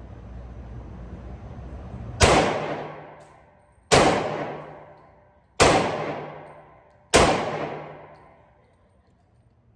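Glock 23 pistol, fitted with a .357 SIG conversion barrel, firing four shots about a second and a half apart, each with a long echoing tail. Low steady background rumble before the first shot.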